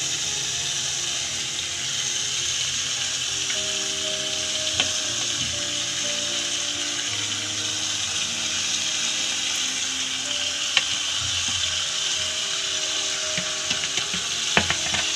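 Potato, pea and tomato masala sizzling steadily in an aluminium pot, with a few light clicks of a steel spatula against the pot, more of them near the end.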